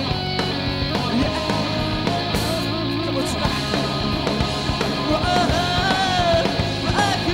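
Live pop-punk band playing a song: electric guitar, bass and drums at a steady loud level, with a voice singing a phrase about five seconds in.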